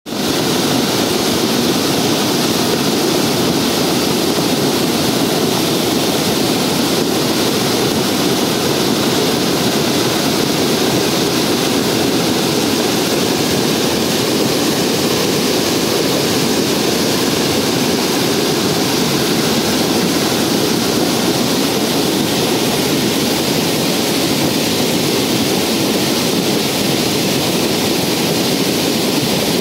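A river in flood rushing in heavy rapids: a loud, steady roar of turbulent, silt-laden floodwater pouring over rocks and a drop.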